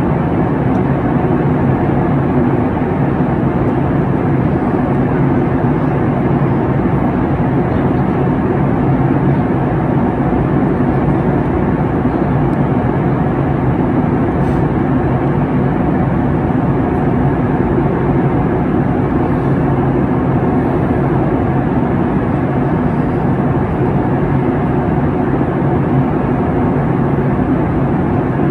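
Airliner cabin noise in flight: a steady, mostly low-pitched rush of jet engines and airflow, unchanging throughout.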